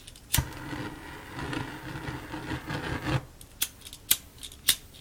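Disposable butane lighter struck with a click and burning with a steady hiss for about two and a half seconds, then clicked repeatedly, about two clicks a second.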